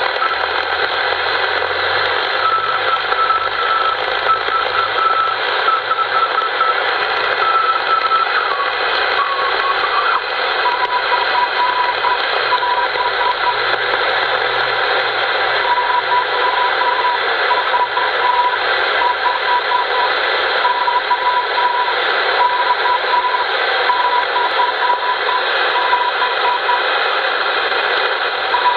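Morse code from a 6-metre beacon, probably YV5OK on 50.076 MHz, received through a transverter and an HR2510 radio: a keyed tone over steady receiver hiss. The note drops in pitch about nine seconds in and then keys on at the lower pitch.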